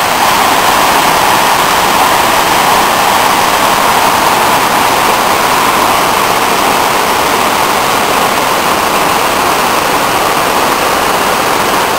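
Havasu Creek rushing over small cascades and rapids: a loud, steady rush of white water with no breaks.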